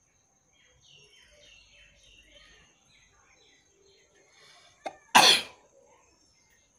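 A person sneezes once about five seconds in: a quick catch of breath, then a single loud, short sneeze, brought on by tickling the nose with a blade of long grass.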